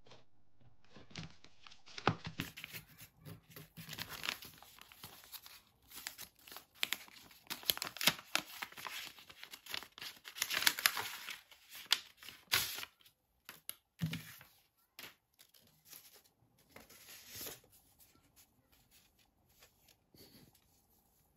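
Paper envelope being handled and opened by hand, with drawings on paper slid out: dense crinkling and rustling for the first dozen seconds or so, then fewer, quieter paper rustles.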